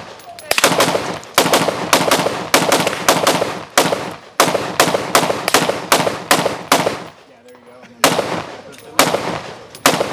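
Gunshots from several shooters firing at once, irregular and sometimes overlapping single shots, each a sharp crack with a short echo, with a brief lull about seven seconds in.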